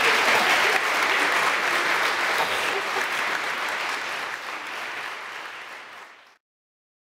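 Audience applauding with dense, steady clapping that tapers off over the last couple of seconds and then cuts off abruptly near the end.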